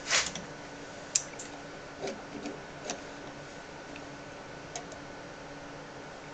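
A few short, light clicks and taps, the sharpest right at the start and about a second in, over a faint steady hum.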